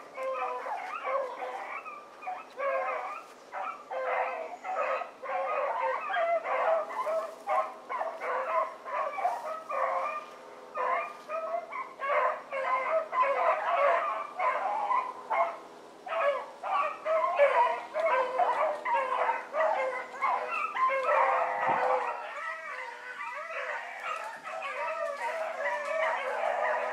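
A pack of rabbit hounds baying on a rabbit's trail: many dogs' voices giving short, rapid, overlapping barks and bawls without a break.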